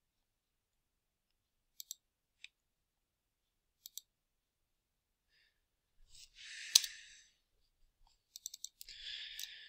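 Computer mouse clicks, faint and scattered, as points are picked while tracing walls in drawing software. There is a sharper click with a short hiss about seven seconds in, and a quick run of clicks with a hiss near the end.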